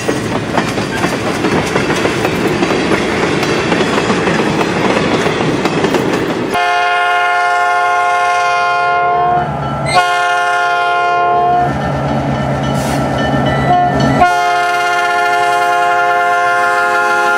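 A train rolls past with its wheels clattering over the rail joints. Then a diesel locomotive's air horn sounds a chord of several notes in long blasts with a short one near the end, in the long-long-short-long pattern of a grade-crossing signal.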